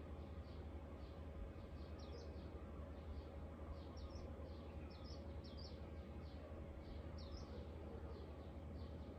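A bird chirping over and over, short high notes about two a second with a few louder ones, over a low steady hum.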